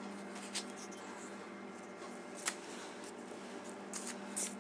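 A few faint, light clicks and rustles of lead bullets and musket balls being handled and set down on a table, the sharpest about two and a half seconds in, over a steady low hum.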